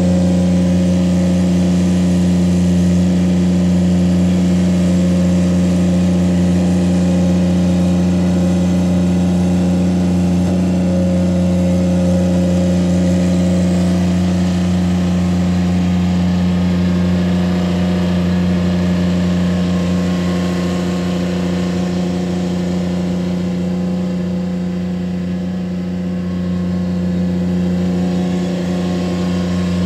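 Ditch Witch SK600 stand-on mini skid steer's engine running steadily under load while the machine drives and pushes dirt with its bucket. The engine hum holds one pitch throughout and eases slightly in loudness a few seconds before the end.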